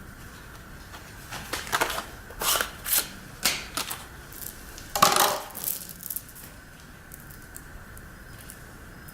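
Metal clinking and rattling of a Makita chainsaw's chain and bar being handled during a chain change: a run of short clinks over about five seconds, the loudest about halfway through.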